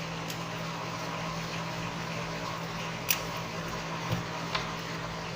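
Steady low electrical hum, like a small fan motor, with a couple of faint light clicks about three and four and a half seconds in.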